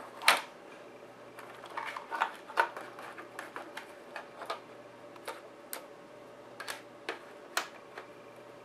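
Scattered clicks and light rattles of hands handling wires, connectors and parts inside an RC model truck's cargo bed. A sharp click a fraction of a second in is the loudest, a cluster of small clicks comes around two to three seconds in, and single clicks follow now and then over a faint steady hum.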